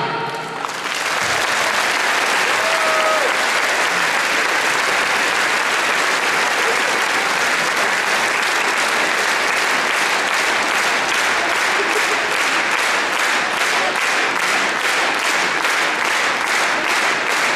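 A large hall audience applauding as the music stops. About halfway through, the clapping falls into a steady beat in unison, roughly two to three claps a second.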